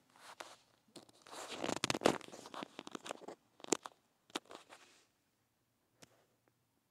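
Rustling, crinkling noise with several sharp clicks, dying away after about five seconds.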